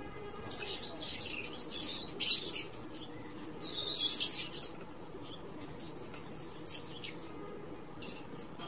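Birds chirping in short high-pitched bursts, loudest about four seconds in, over a faint steady hum.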